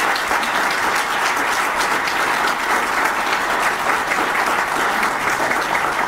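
Audience applauding: many people clapping at once, loud and steady.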